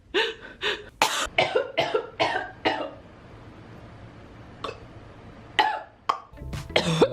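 A woman coughing: a fast run of short, harsh coughs, a pause with one more, then another bout near the end.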